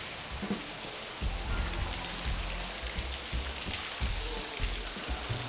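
Ornamental tiered fountain, its water spilling over the rim of the upper bowl and splashing steadily into the basin. Low background music with a deep bass comes in about a second in.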